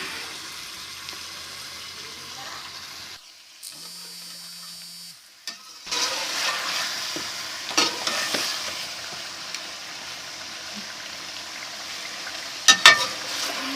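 Chicken pieces frying in hot oil in a karahi over high heat, a steady sizzle as their water cooks off, with a spatula clattering against the pan around eight seconds in and again near the end. About three seconds in the sizzle drops away for a couple of seconds, leaving a faint low hum, then returns.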